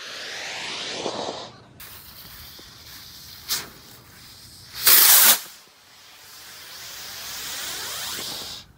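Jumbo firework rocket hissing as its charge burns, with a short louder blast about five seconds in; the hiss swells again and cuts off suddenly near the end.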